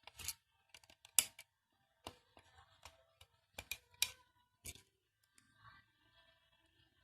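A handful of sharp clicks and light knocks at irregular intervals, the loudest about a second in, as of small hard objects being handled.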